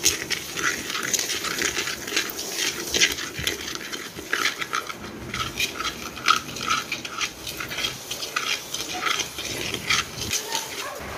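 Wooden spatula stirring and scraping raw rice grains around a dry wok, the grains rustling against the metal in quick, irregular strokes as the rice is toasted for rice coffee.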